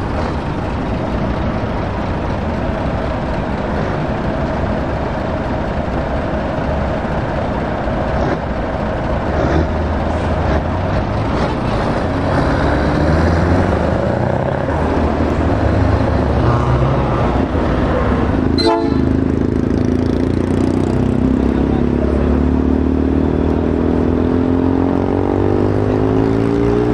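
Heavy truck diesel engines running as tractor units pull away one after another, growing louder about a third of the way in. A single sharp knock about two-thirds through, then another truck engine getting louder as it draws near.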